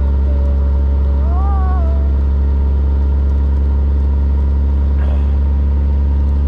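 Cummins ISM diesel of a 2000 Freightliner FLD 112 single-axle semi running steadily at highway speed, heard from inside the cab as a loud, even low drone.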